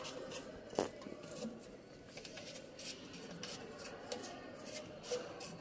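Small handling noises: scattered light rustles and clicks as parts are handled, with one sharper click just under a second in.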